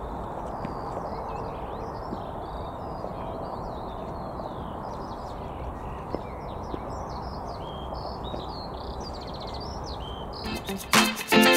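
Small birds chirping and calling over a steady low outdoor background noise. Strummed guitar music starts about a second before the end.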